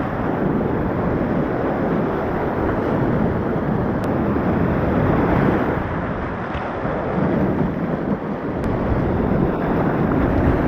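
Whitewater rapids of a steep mountain creek rushing steadily and loudly, with wind buffeting the microphone.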